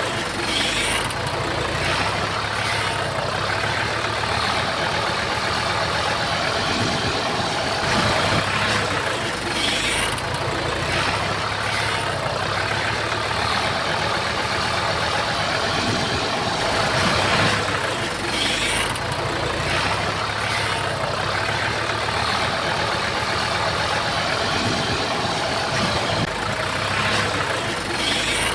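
Komatsu bulldozer's diesel engine running steadily, with a continuous clatter that swells louder about every nine seconds.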